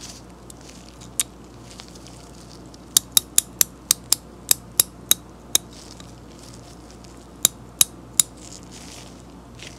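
SATA ST12971U 3/8-inch drive ratchet, head open with the cover plate off, clicking as the gear is turned by hand and the pawl snaps over the gear teeth. There is a single click, then a run of about ten sharp clicks at roughly four a second, then three more near the end.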